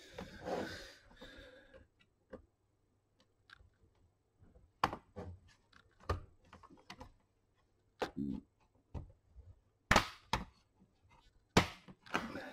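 Plastic clips of an HP 250 G7 laptop's case snapping loose as a pry tool works along the seam between the keyboard deck and base: a brief rustle of handling, then a string of separate sharp clicks, the loudest ones in the second half.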